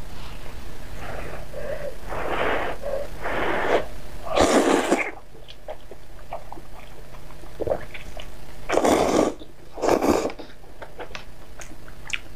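A person slurping hot noodles in short, hissing bursts of sucked-in air. There are three slurps in the first half and two close together near the end, with faint chewing and chopstick clicks between.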